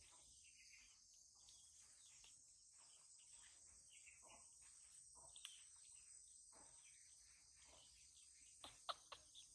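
Near silence with a faint, steady high-pitched insect chorus; a few short clicks near the end.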